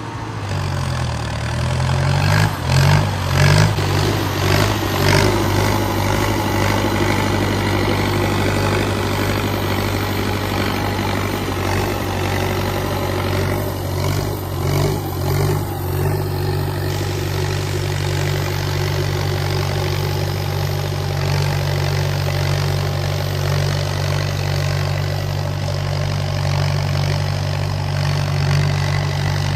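Indo Farm tractor's diesel engine working under load pulling a harrow. It revs up and down over the first few seconds, then runs at a steady pace.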